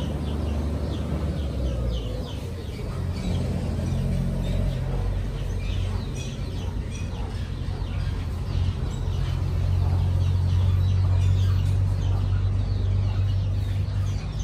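Steady low machine hum, with birds chirping repeatedly in the background.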